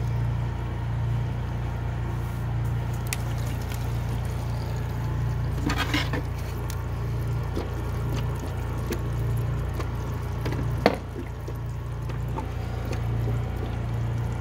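Diesel exhaust fluid pouring steadily from a cardboard box through a flexible plastic spout into a filler neck. A couple of short knocks break in, one near the middle and a sharper, louder one about three-quarters through.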